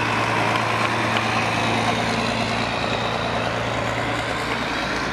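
Engines of WWII military vehicles, an army box-bodied truck and a halftrack, running steadily at low speed as they pass close by in a slow procession, with an even low hum.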